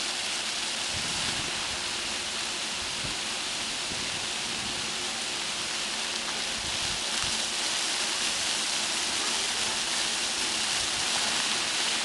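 Ground-level fountain jets spraying up from a paved plaza and splashing back onto the stone: a steady hiss of falling water, slightly louder in the second half.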